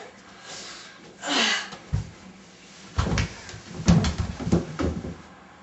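Several dull thumps and knocks in a small room: one about two seconds in, then a cluster of them between about three and five seconds in. They follow a short rush of noise that falls in pitch.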